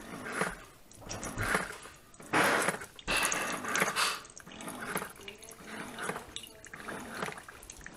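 Keurig single-serve coffee maker brewing into a mug: coffee spurting and splashing into the cup in uneven surges, strongest a little past two seconds in.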